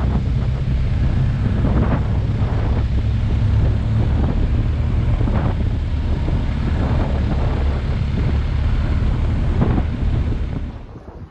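Wind rushing over the microphone of a moving motorcycle, over the bike's steady low engine drone. The sound drops away suddenly near the end.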